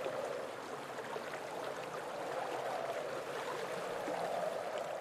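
Steady sound of running water, like a flowing stream.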